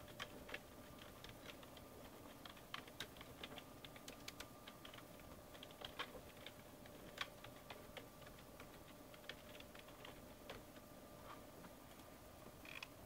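Typing on a computer keyboard: soft, irregular key clicks, some in quick runs, over a faint steady electrical hum.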